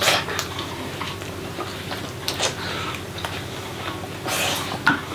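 Mouth sounds of people eating momos, chewing and smacking, with scattered small clicks of a fork on metal bowls.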